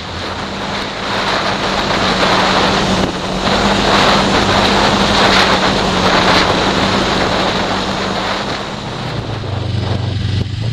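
Snowmobile engine running at a steady pitch under loud rushing wind and track noise. About nine seconds in, the engine note drops lower as the machine slows toward idle.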